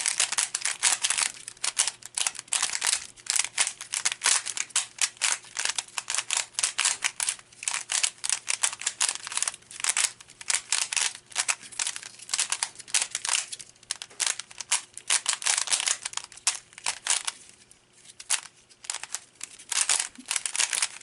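Stickerless concave puzzle cube being turned rapidly during a speed solve: a fast, continuous clatter of plastic layers clicking and scraping, with a short break about 17 seconds in.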